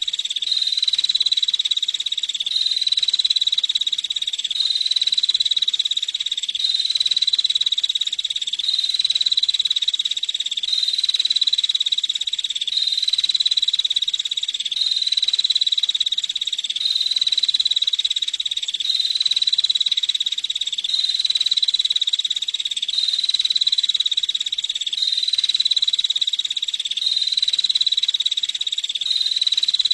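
Female prinia (prenjak) giving its rapid, buzzing trill call, high-pitched and unbroken, repeated in near-identical phrases about every two seconds.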